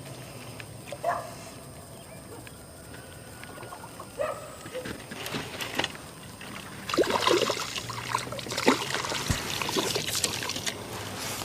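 Water splashing and sloshing in bursts from about seven seconds in, as a hooked fish is brought up to the boat. Earlier, a few short high whines are heard.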